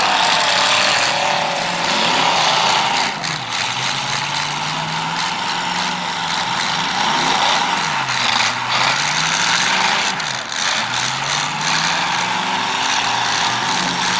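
Several demolition derby cars' engines running at once, revving up and falling back in pitch over and over, over a dense rumble of engine and exhaust noise.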